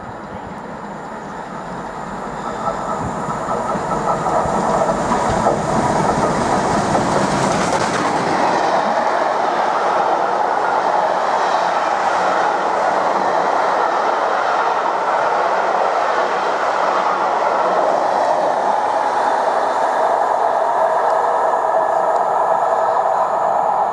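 A train passing on the line. It grows louder over the first four seconds or so, then runs by steadily for the rest of the time.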